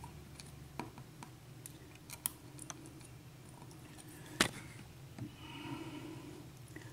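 Scattered light clicks and taps of small metal lock parts being handled, with one sharper click about four and a half seconds in.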